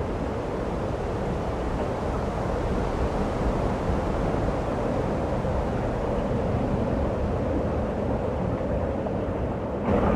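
Steady rumbling wind of a snowstorm, with no distinct gusts or knocks. It turns suddenly louder just before the end.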